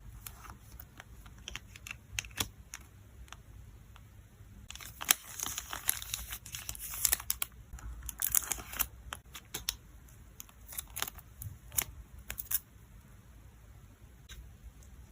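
Packaging crinkling and rustling as photocards are packed, with scattered sharp clicks and taps throughout and two longer stretches of crinkling, about five seconds in and around eight seconds in.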